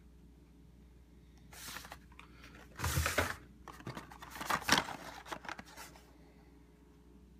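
Hot Wheels blister-carded cars being handled and shuffled: crinkling of the plastic blisters and rustling of the card backs, with sharp clicks and a dull thump about three seconds in. The sound comes in several bursts between about one and a half and six seconds in.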